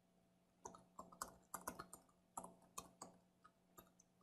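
Faint computer keyboard typing: a dozen or so separate, irregular keystrokes that begin under a second in and thin out near the end.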